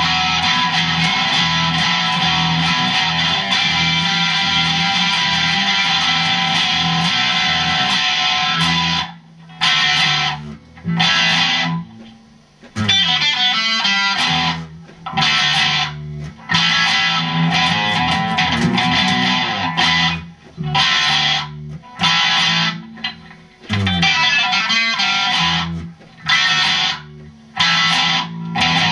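Electric guitar and electric bass played together: a steady, continuous strummed part for about the first nine seconds, then choppy stop-start chords with short silent breaks between them.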